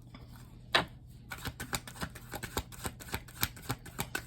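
A tarot deck being shuffled by hand: one sharp card slap a little under a second in, then a quick run of card flicks and riffles, several a second.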